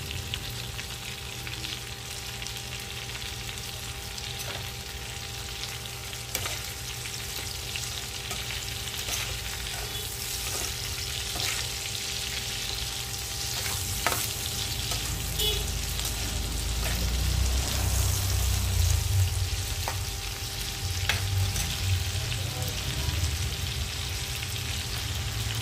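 Whole shrimp sizzling steadily in hot oil in a pan, with a metal spatula scraping and clicking against the pan as they are turned. A low hum runs underneath and grows louder in the second half.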